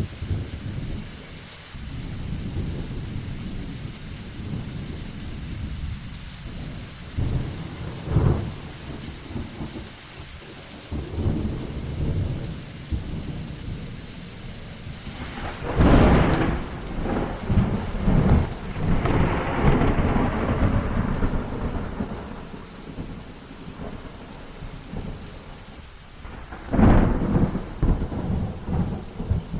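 Thunderstorm: continuous low rumbling thunder over rain, with sharp thunderclaps about 8 seconds in, a loud one at about 16 seconds followed by another near 18 seconds, and another loud crack near the end.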